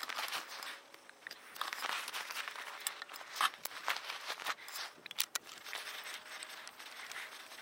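Handling noise from loading a homemade .410/.50-calibre barrel: rustling with many small sharp clicks as a .410 shell is held in the breech and the barrel is brought up to the pistol frame, the strongest click about three and a half seconds in.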